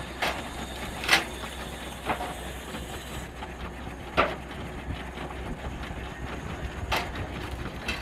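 Horse-powered treadmill running with a steady mechanical rumble and clatter as it drives a log splitter, with five sharp wooden knocks at uneven intervals as logs are split and pieces drop, the loudest about a second in.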